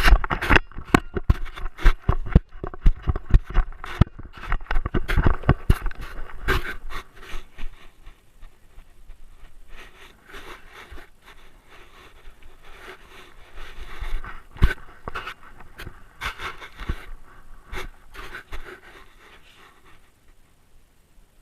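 Great Dane panting right at a camera mounted on the dog, with frequent knocks and scrapes from the camera and its mount as the dog moves. The knocking thins out after about seven seconds, leaving mostly panting with an occasional knock.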